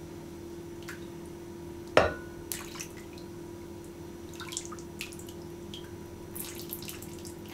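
Sugar syrup poured in a thin stream from a stainless steel pot onto a soaked sponge cake in a glass baking dish, trickling and splashing, with a sharp knock about two seconds in. A steady low hum lies beneath.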